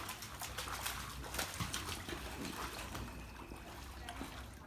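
Water splashing and sloshing in an inflatable pool as children kick and move through it, with frequent short splashes that thin out near the end.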